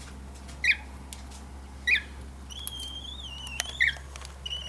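Fledgling cockatiel chirping: three short high chirps, with one longer wavering call in the middle, and a few faint clicks.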